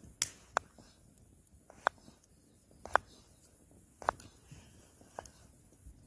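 Small knife slicing through a raw potato and striking a wooden cutting board: six sharp taps, roughly one a second.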